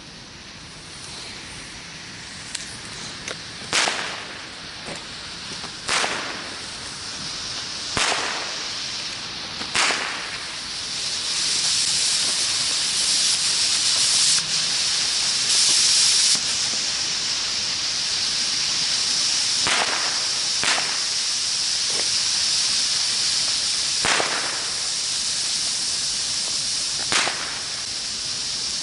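New Year's Eve fireworks: sharp firecracker bangs going off every couple of seconds, with a long hissing of a burning firework lasting about six seconds around the middle.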